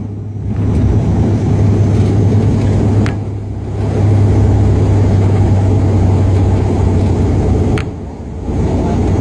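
Turboprop airliner's engines and propellers droning steadily, heard inside the passenger cabin as the aircraft rolls along the runway, a strong low hum under broad noise that briefly fades three times.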